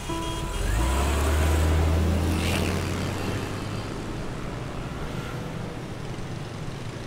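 A BMW sedan driving off. Its engine and tyre noise swell about a second in, then fade away over the next few seconds.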